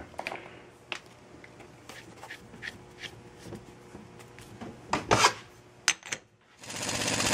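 Light clicks and a short metallic clatter as steel parts of a Ford 9-inch pinion assembly, the yoke, washer and nut, are handled and fitted. Near the end a loud, fast rattle starts up, typical of an impact wrench running down the pinion nut to set the bearing preload.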